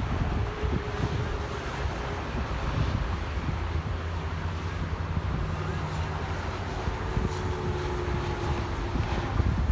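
Wind buffeting the microphone over a steady low rumble of passing traffic, with a faint engine hum through the middle.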